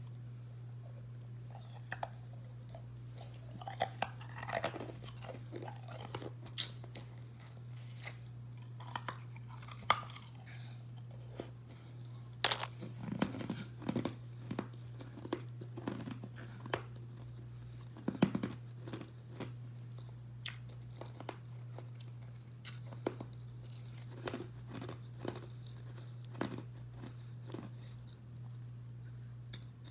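Carbonated ice being bitten and chewed: irregular sharp crunches with bursts of grinding chews, over a steady low hum.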